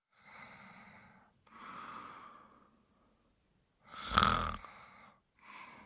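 Snoring in sleep: slow, noisy breaths about every one and a half seconds. The one about four seconds in is a much louder snore with a low, rough buzz.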